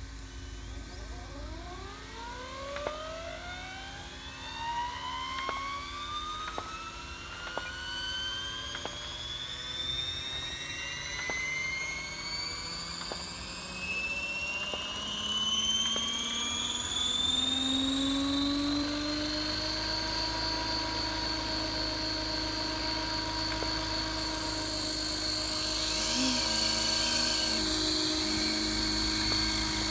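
Scale Gazelle RC helicopter built on a T-Rex 600 spooling up on the ground: a whine that rises steadily in pitch for about twenty seconds as the main rotor and fenestron tail come up to speed, then holds steady. The rotor noise grows louder near the end, as it nears take-off speed.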